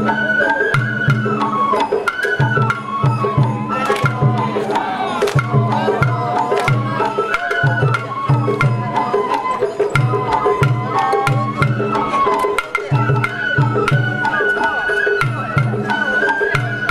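Sawara bayashi festival music: a shinobue bamboo flute playing a stepping melody over a steady beat of taiko drums, about two low strokes a second, with sharp clicking strikes laid over it.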